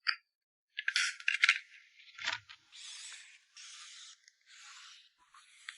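Plastic packaging crinkling and rustling as photocards are handled and packed: a burst of crisp crackles about a second in, a soft thud, then three short swishes about a second apart.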